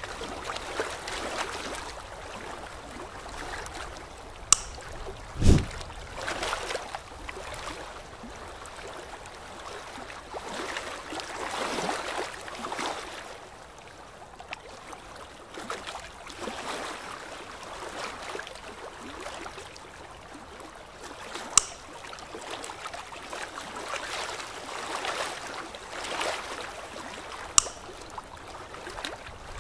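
Dental suction tip slurping and gurgling saliva and water in the mouth, swelling and fading in waves. A few sharp clicks and one low thump about five seconds in stand out above it.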